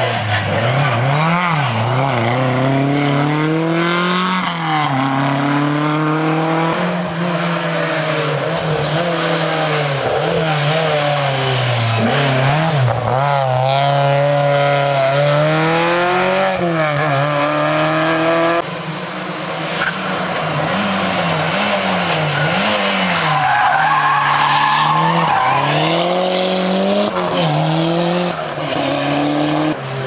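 Historic rally cars, a Ford Escort among them, driven hard past one after another. The engines rev high, their pitch climbing and dropping with each gear change and each lift for the bends.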